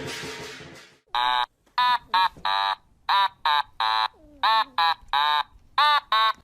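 A cat giving about a dozen short meows in quick succession, each rising and falling in pitch. Music fades out just before them.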